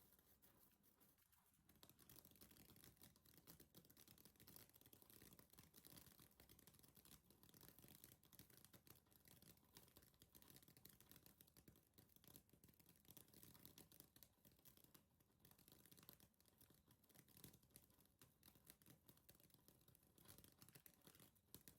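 Faint, dense crackling hiss of a handheld firework spraying sparks, starting about two seconds in.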